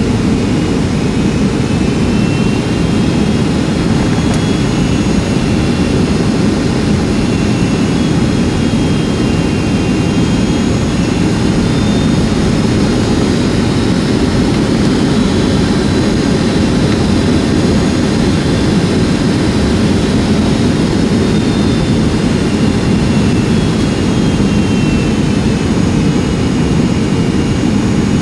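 Boeing 757-200 jet engines and airflow heard from inside the passenger cabin: a steady, loud low rumble with faint high whining tones that drift slowly up and down in pitch.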